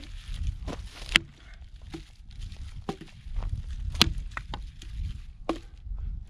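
Dry dead branches being snapped and handled: several sharp cracks and knocks of breaking wood, the loudest about a second in and about four seconds in, over a low rumble.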